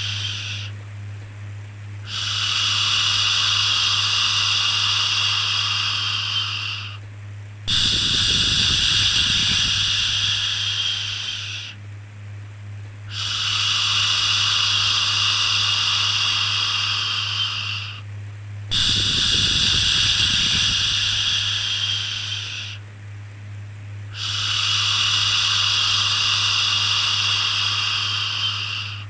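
A repeated 'shhh' shushing sound for soothing a baby: five long shushes, each about four to five seconds, with short pauses between them. A steady low hum runs underneath.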